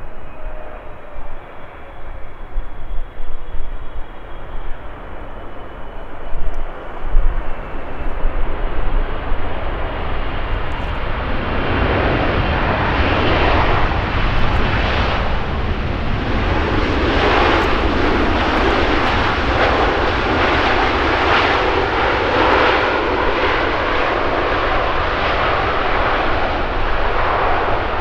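A Boeing 777-300ER's GE90-115B jet engines during landing. For the first ten seconds or so there is a low, gusty rumble with a faint falling whine. About eleven seconds in, a loud rushing roar builds and then holds steady: the engines in reverse thrust on the landing rollout, with spoilers deployed.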